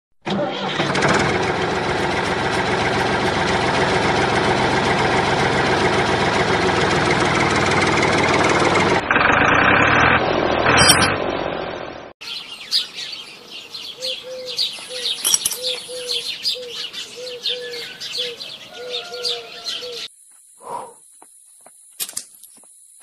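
A small motor, the sound of the toy tractor, runs steadily and loudly for about nine seconds, then cuts off. Later, birds chirp in a repeating pattern over light clicks as a metal hitch pin is handled.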